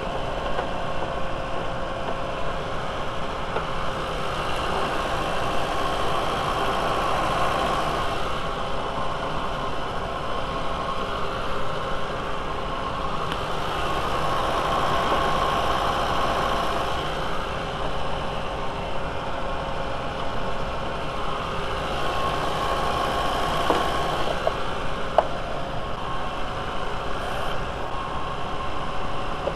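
VW 1.8T turbo four-cylinder engine idling steadily in the open engine bay while it warms up after a coolant refill, with a constant whine and a rushing sound that swells and fades every several seconds. A couple of light clicks near the end.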